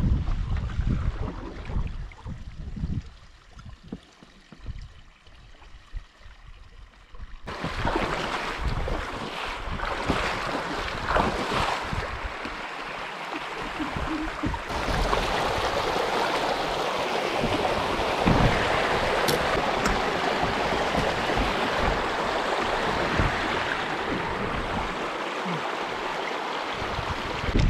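Wind buffeting the microphone in gusts. About seven seconds in it gives way abruptly to a steady rushing of water and wind.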